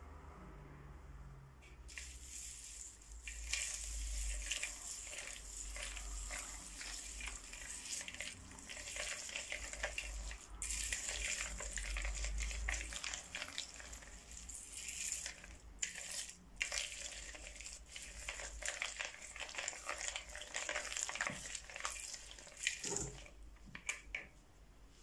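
Plastic beads, foam balls and cut straw pieces crackling and rattling as a wooden stick stirs them through clear slime in a glass bowl. The crunching starts about two seconds in and stops shortly before the end.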